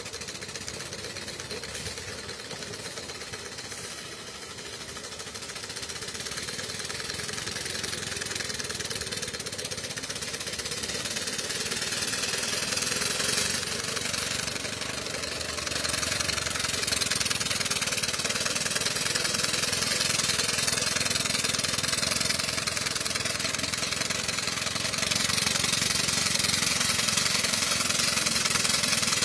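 Homemade miniature steam traction engine running at full steam pressure, its exhaust beating rapidly and evenly with a hiss of steam. It grows steadily louder as the engine drives closer.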